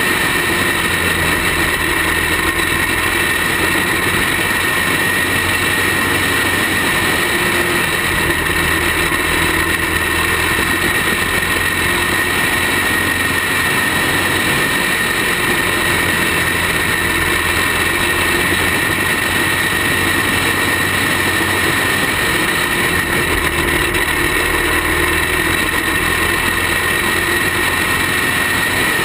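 Racing kart engine running steadily at speed, recorded from a camera mounted on the kart itself, with a constant high whine.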